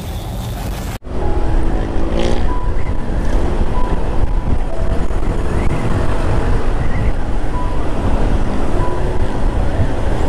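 Motorcycle riding noise: wind rushing over the microphone with engine and road noise underneath. It starts abruptly about a second in and then runs steadily.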